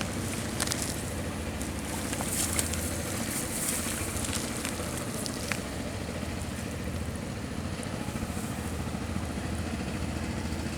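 Steady low engine drone under an even crackling hiss, with scattered faint clicks.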